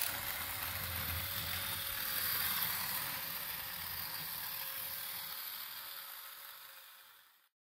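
Battery-powered TOMY Grippidee Gravidee toy running: a small electric motor and plastic gears whirring steadily as the space capsule travels along the plastic track. The sound fades away over the last couple of seconds and then cuts off abruptly.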